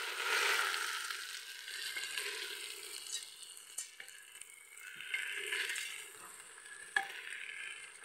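Soaked rice stir-frying in an aluminium pressure cooker: steady sizzling that swells and fades as a wooden spoon turns and scrapes through it, with a few small ticks and a sharp tap about seven seconds in.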